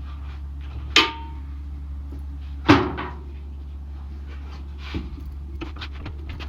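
Metal clanks and knocks from demounting a tyre on a tyre-changing machine, over a steady low hum. One ringing clank comes about a second in and the loudest near three seconds in, with lighter knocks towards the end.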